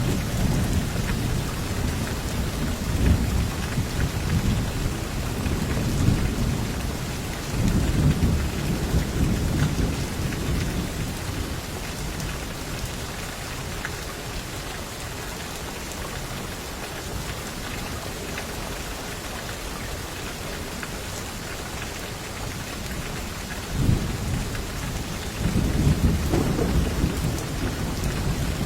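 Steady heavy rain hissing, with rolls of low thunder rumbling in the first several seconds, fading to rain alone through the middle, then rumbling again near the end.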